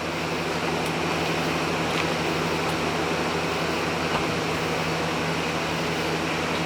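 Steady mechanical hum of a running machine, even and unchanging, with a couple of faint light clicks.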